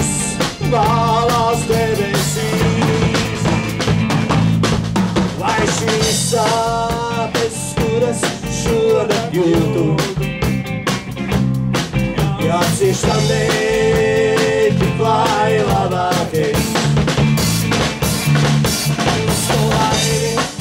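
Live band playing an instrumental break: a saxophone carries a wavering melody over drum kit, electric guitar and bass.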